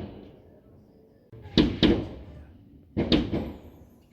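Fireworks going off: two pairs of sharp bangs, each fading out in an echo, about one and a half and three seconds in.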